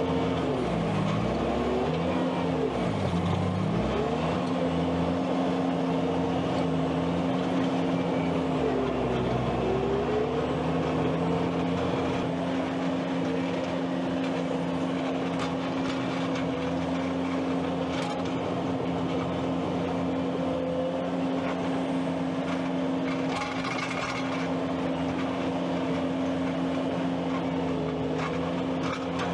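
Skid steer engine running at high revs, its pitch dipping briefly a few times in the first ten seconds and then holding steady.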